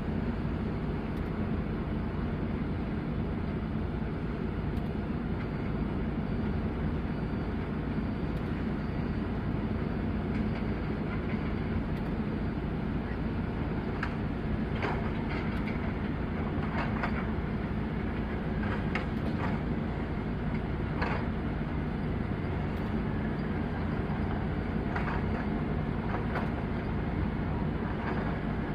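Excavator diesel engine running steadily, with a run of sharp metallic clanks about halfway through and a few more near the end.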